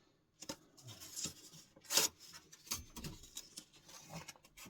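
Short, irregular scrapes and rustles of abrasive finishing paper being handled and tried against the steel of an axe head. The loudest scrape comes about two seconds in.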